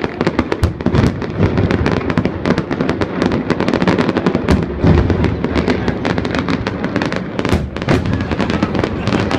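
Fireworks display going off in a dense barrage: many rapid, overlapping sharp bangs over a constant low rumble.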